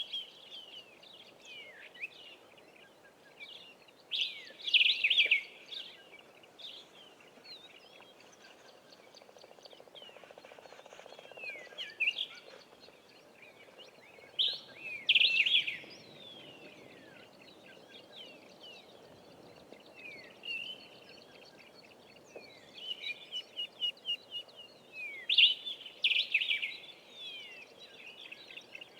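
Several wild birds calling and singing: loud bursts of song about four, twelve, fifteen and twenty-six seconds in, with quieter chirps and whistles between and a quick run of repeated notes near the end, over a soft steady background noise.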